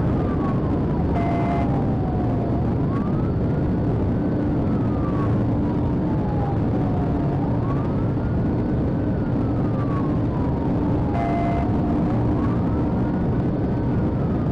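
Police car siren on a slow wail, rising and falling about every five seconds, over loud road and engine noise from the patrol car at high speed. A short two-tone beep sounds twice, about a second in and again near the end.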